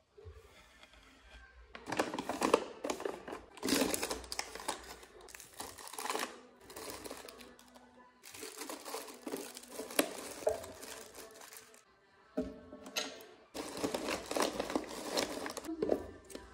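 Plastic grocery packaging crinkling and rustling in bursts as packets are handled and pushed onto cabinet shelves, with light knocks as items are set down; background music plays underneath.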